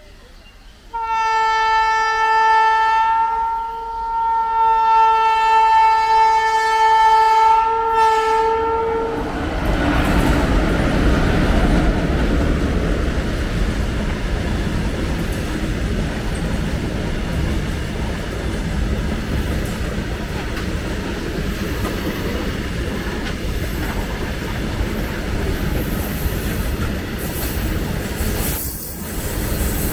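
Indian Railways WAG-7 electric locomotive sounding its horn in one long blast that dips briefly near the start, then a loaded freight train rushing past at speed with heavy wheel rumble and clatter from its wagons.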